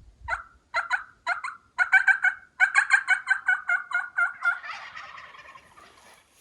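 A long series of turkey yelps. Three spaced notes come first, then a fast run of about six a second, and the series trails off into a rougher, fading rattle.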